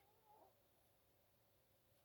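Near silence: quiet room tone with one faint, short pitched call that bends in pitch, lasting about half a second just after the start.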